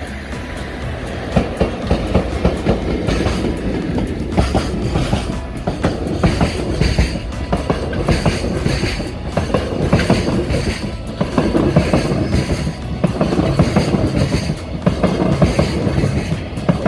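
Freight train passing close by, its wagons rolling over rail joints with a repeated clickety-clack clatter.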